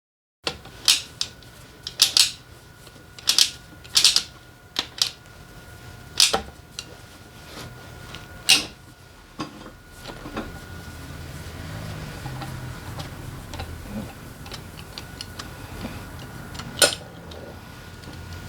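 Metal tools and small engine parts clacking and clinking by hand during motorcycle engine disassembly: about a dozen sharp knocks in the first half, then fainter ticks over a low hum.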